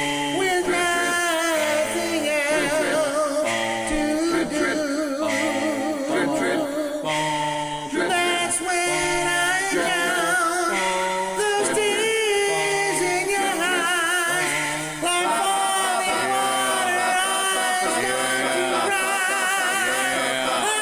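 A cappella vocal music: one male singer's voice multitracked into several parts, a sung bass line moving in short held notes under higher harmony voices with vibrato.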